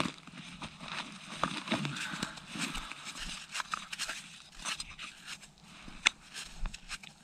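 Irregular light crackling, rustling and clicks of snow and gear being handled close by, as a freshly caught perch flops on the snow beside the ice hole; one sharper click about six seconds in.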